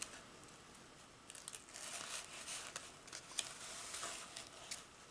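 Faint rustling and crinkling of a rolled diamond painting canvas being slowly unrolled by hand, with scattered small crackles starting about a second in.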